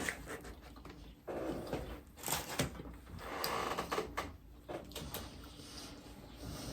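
Eating noises up close: chewing, with irregular rustles and a few light clicks of food and wrappers being handled.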